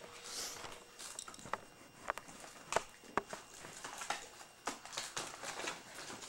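A handful of light, separate clicks and taps, with a soft rustle near the start: handling noise.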